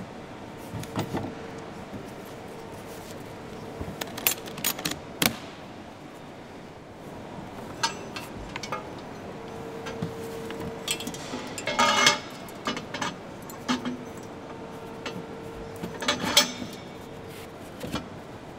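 Metal parts of M777 howitzer pull-back equipment being handled and packed into a wood-lined transport box: scattered clanks, clinks and knocks of metal on metal and wood, with the busiest, loudest stretch about two-thirds of the way through. A steady faint hum underlies them.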